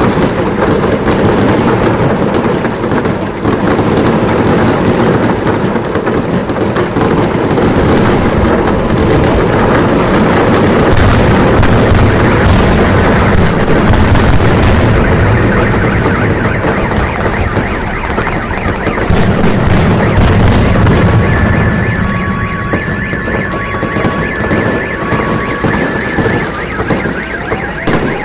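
Fireworks barrage: a dense, loud, continuous run of bangs and crackles, heaviest in the middle. About three quarters of the way through, a car alarm goes off, alternating between two tones.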